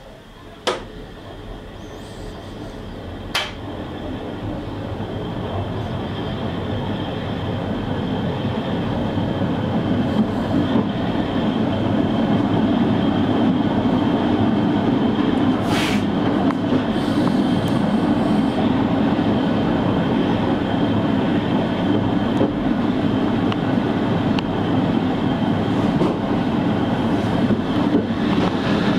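Train pulling away and gathering speed, its running noise swelling over the first dozen seconds into a steady rumble of wheels on rail with a faint high whine. A couple of sharp clicks come near the start and one more midway.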